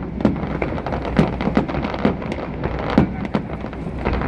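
Fireworks going off in a run of sharp, irregular bangs, about two a second, over a steady low rumble.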